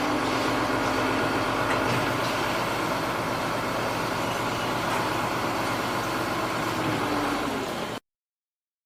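An engine running steadily, cutting off suddenly about eight seconds in.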